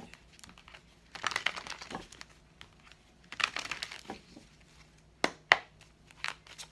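A deck of tarot cards being shuffled by hand: short bouts of cards rustling and slapping together, with pauses between, and two sharp loud snaps about five seconds in.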